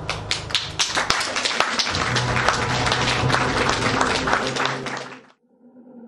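Applause, many hands clapping, over the tail end of the show's music; both cut off suddenly about five seconds in.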